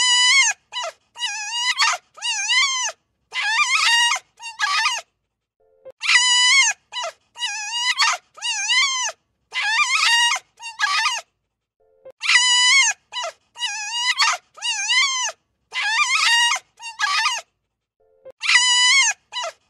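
Wolf yipping and whining: short, high, wavering calls in quick runs of about a dozen, the same run repeating roughly every six seconds.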